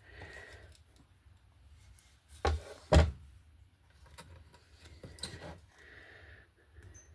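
Two loud knocks about half a second apart as a wooden picture frame is handled and taken apart, followed by a few lighter clicks and taps.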